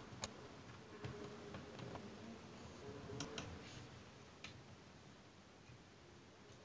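Faint, irregular clicks of plastic LEGO pieces being handled, with a sharper click just after the start and a pair of clicks around three seconds in.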